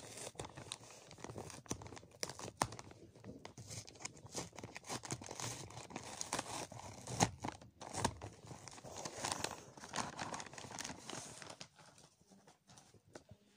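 A plastic parcel mailing bag being torn and crinkled by hand as it is worked open, an irregular run of rustles and crackles that thins out near the end.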